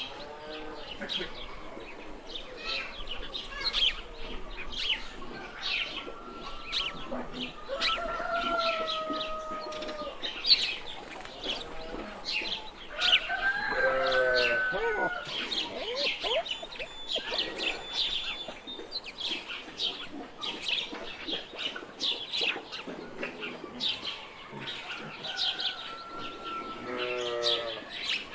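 Small birds chirping continuously, with three longer drawn-out animal calls, the loudest about halfway through.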